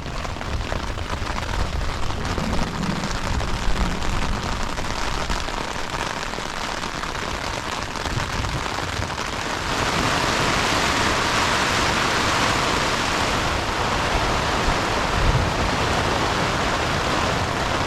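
Rain falling steadily on a tent, a dense even patter that turns heavier and louder about ten seconds in.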